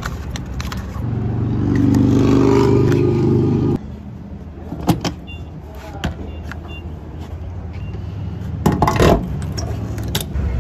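Refuelling at a gas pump: two short electronic beeps from the pump's keypad, then clicks and a clatter as the fuel nozzle is handled and pushed into the truck's filler neck. A steady vehicle engine hum sits underneath, loudest in the first few seconds and cutting off suddenly.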